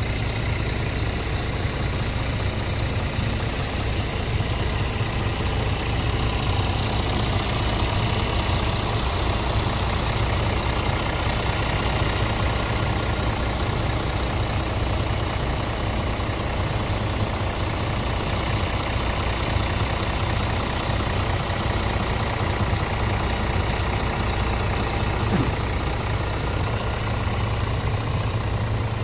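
Scania R Euro 6 tractor unit's diesel engine idling steadily.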